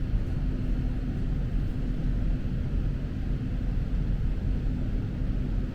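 Train running, heard from inside the passenger car: a steady low rumble with a faint steady hum that stops near the end.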